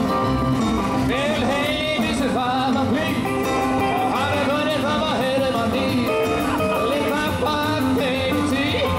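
Live rock and roll band playing a song, a steady beat under a gliding melody line.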